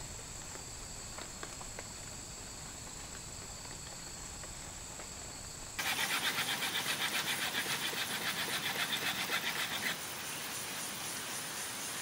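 Insects trilling, a steady high shrill with a few faint ticks. About six seconds in, a louder insect chorus takes over, pulsing about five times a second, and stops around ten seconds, leaving a high hiss with faint pulsing.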